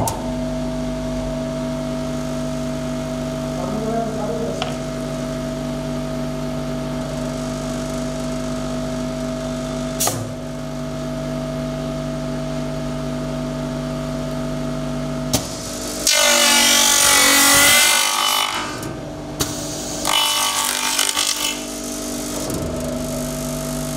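Electric motor of a uPVC end milling machine running with a steady hum, its stacked cutters spinning. After a sharp click, about 16 seconds in the cutters bite into the end of a white uPVC profile with a loud, harsh cutting noise lasting about two seconds. A second, shorter cut follows about 20 seconds in.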